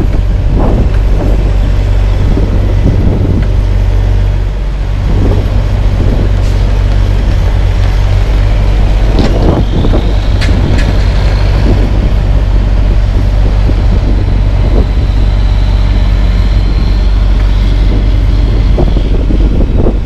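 Diesel engine of a Freightliner dump truck running with a steady low rumble, mixed with wind buffeting the microphone.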